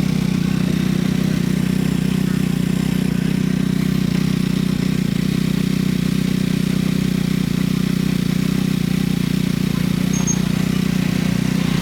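KTM 390 Duke single-cylinder engine running steadily at an even idle, with no change in revs.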